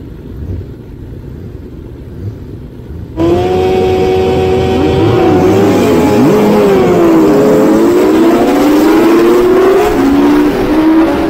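Racing motorcycles on a start grid: a low idling rumble, then about three seconds in several engines are revved hard together. Their pitch rises and falls as the throttles are blipped and held.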